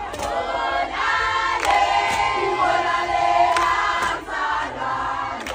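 A group of voices singing together in chorus, with a few sharp hits scattered through.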